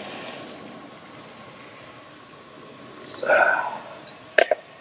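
Boiled water poured from an aluminium cook pot into a metal bowl, over steady cricket chirring. A short sound about three seconds in, then two sharp clicks near the end.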